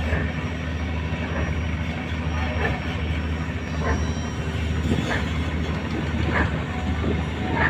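Fishing motor boat's engine running steadily at low speed as the boat pulls away from the dock, a deep even hum, with a short sharper sound repeating a little more than once a second.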